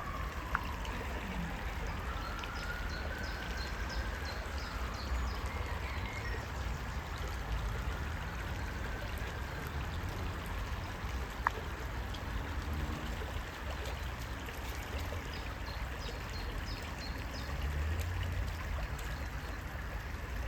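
Creek water running and rippling steadily. A faint siren wails, rising and falling, over the first several seconds, with a few short high chirps and one sharp click near the middle.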